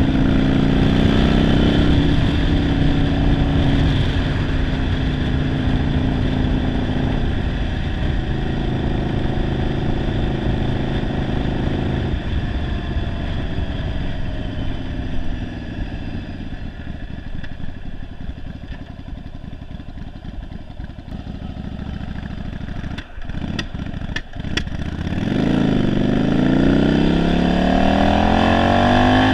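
1991 Yamaha Virago 750's air-cooled V-twin, fitted with a single-carburettor conversion and described as running poorly, heard from the rider's seat while under way. It runs steadily, then the pitch drops and it goes quieter as it slows and coasts; a few sharp clicks come near 24 s, and then it revs up with rising pitch as it accelerates again.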